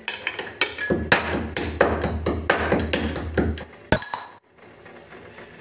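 Whole spices (ginger, ajwain, cinnamon, black pepper, cloves) being pounded in a mortar with a pestle: rapid clinking strikes, about four a second, with a metallic ring. The pounding stops after one hard strike about four seconds in.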